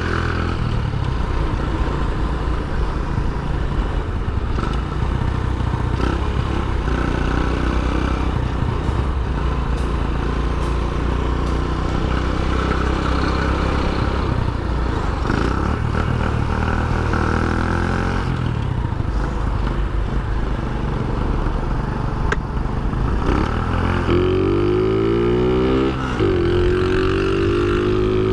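Shineray Phoenix 50 cc scooter engine running under way in traffic, its pitch rising as it accelerates near the end.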